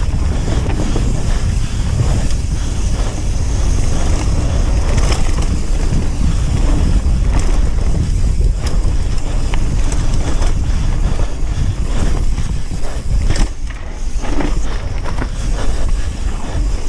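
Mountain bike riding fast down a bike-park trail: tyres rumbling over dirt and stones, with frequent clattering knocks from the bike and wind buffeting the microphone.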